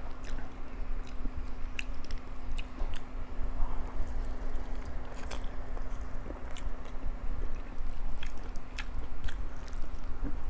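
Close-miked chewing and eating of Chapagetti black bean instant noodles: wet mouth sounds with many small scattered clicks, over a steady low hum.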